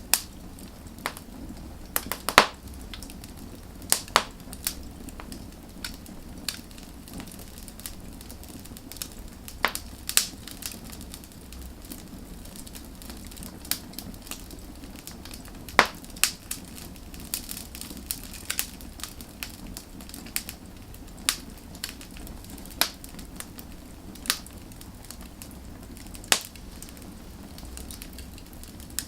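Wood fire crackling: irregular sharp pops and snaps over a soft steady bed of flame noise, with a few louder pops, one about two seconds in and another about sixteen seconds in.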